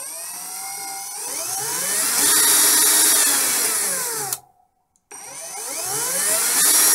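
Brushed DC motor of a Ferrex 20 V cordless drill, bare on the bench, driven through its variable-speed trigger switch: its whine rises as the trigger is squeezed, eases back down, then stops abruptly about four seconds in as the trigger is released and the switch contacts short the motor to brake it. About half a second later it spins up again with a rising whine.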